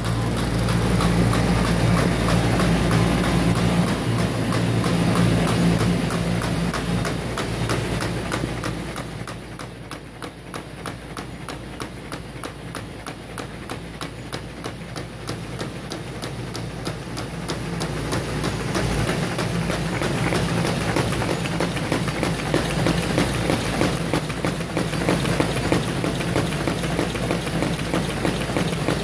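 Carton folder-gluer running with a steady mechanical hum and a fast, regular clatter as its belts carry carton blanks through. The sound drops back for several seconds midway and then grows again.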